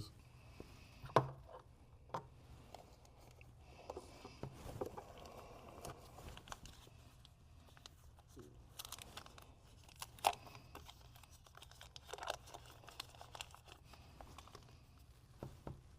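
Faint rustling and crinkling of packaging being handled and opened during an unboxing, with a few scattered sharp clicks and taps; the loudest click comes about ten seconds in.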